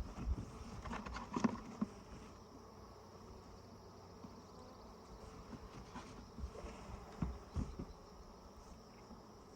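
Honeybees buzzing around an open hive, with a few light knocks about a second in and again around six to eight seconds in.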